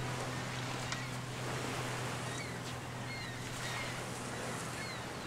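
Sea waves washing onto a pebble beach, with a low steady hum underneath. Several short, falling gull cries come in over the surf in the second half.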